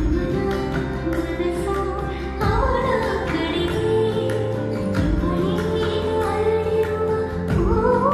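Kannada film song with a full band and drums entering sharply at the start, and a singing voice coming in about two and a half seconds in. The track is given 8D audio processing, which pans it around the listener.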